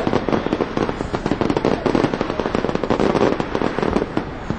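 Fireworks display going off: a dense, rapid run of overlapping crackles and small bangs, with no let-up.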